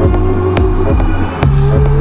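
Electronic music with sustained low bass tones and sharp percussive hits a little under a second apart; the bass shifts to a new note about one and a half seconds in.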